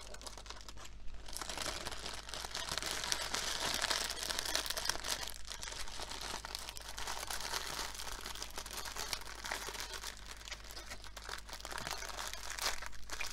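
Small plastic drill bags crinkling and rustling as they are handled and bagged up together, an irregular crackle that goes on throughout.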